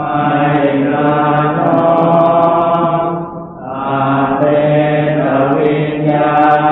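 Thai Buddhist evening chanting (tham wat yen), recited on a near-monotone with long held syllables. There is a short breath pause about three and a half seconds in.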